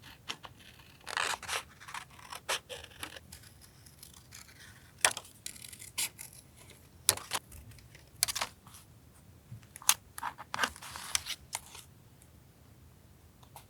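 Scissors snipping and paper being handled during collage journaling: a string of sharp, separate clicks and snips with a few short stretches of paper rustling.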